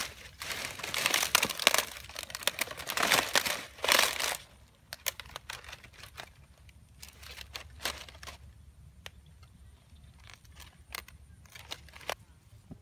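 Dry palm fronds crackling and rustling as they are dragged and pressed down, dense for the first four seconds or so, then scattered single crackles.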